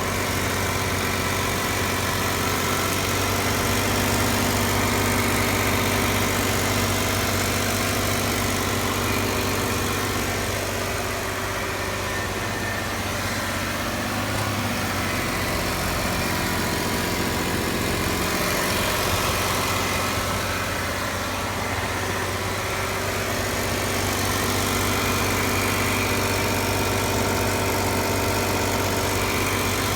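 2015 Jeep Wrangler's 3.6-litre Pentastar V6 running steadily at about 2000 rpm, with a ticking from the engine bay on a nearly new engine of only 200 miles.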